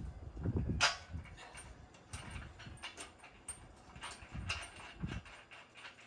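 Scattered clicks and knocks of hand work on metal parts, with a sharp click about a second in, and low rumbles of wind or handling on the microphone.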